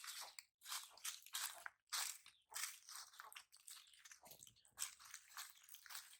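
Crunchy chewing: a run of short crackling crunches, roughly one to two a second, as something brittle is bitten and chewed.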